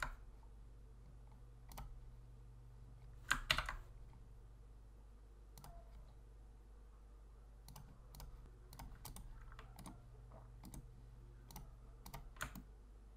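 Scattered single clicks of a computer mouse and keyboard keys, about a dozen spread apart, the loudest a quick double click about three and a half seconds in, over a faint steady low hum.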